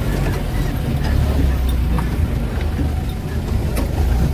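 Jeep engine running with a steady low drone as it crawls over a rough rocky track, with scattered knocks and rattles from the vehicle jolting on the stones.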